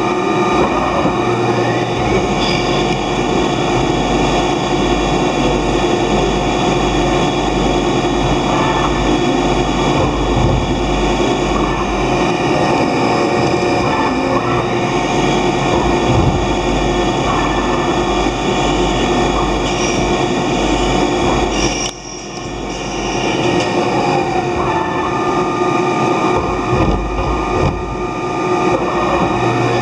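Mori Seiki CNC lathe running a machining cycle: steady machine noise with several held tones. About two-thirds of the way through the noise drops suddenly, then builds back up over a couple of seconds.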